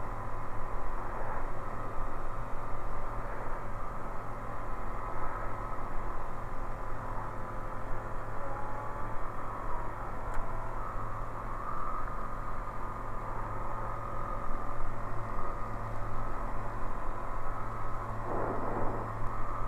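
Single-engine light aircraft's piston engine and propeller running steadily at climb power, heard from the cockpit just after takeoff.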